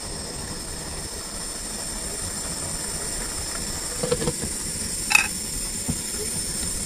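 Steady hiss of steam rising from a boiling pot. A metal pot lid clatters as it is set back on about four seconds in, followed by a sharp metallic clink about a second later.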